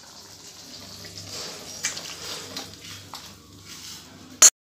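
Thin, watery potato and pointed-gourd curry being poured from a wok into a steel bowl: a soft pouring of liquid with small clinks of metal. A single sharp knock near the end, then the sound cuts out.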